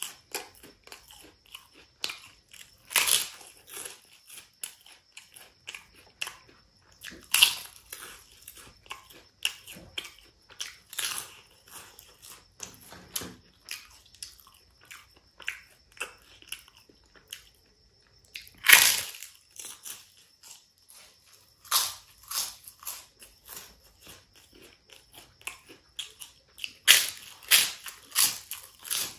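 Crunching and chewing of a crisp fried papad, close to the microphone. Loud crunchy bites come every few seconds, with smaller crackling chews between them.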